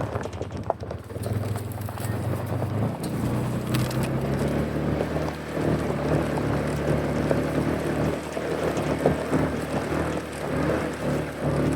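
A vehicle engine running steadily, its note stepping up slightly about three seconds in, with rumble and wind noise on the microphone.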